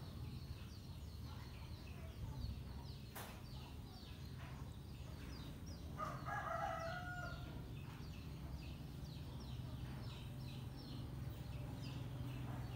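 A rooster crows once in the background, about six seconds in, a single pitched call lasting about a second. Faint high chirping repeats throughout over a steady low hum, with one click about three seconds in.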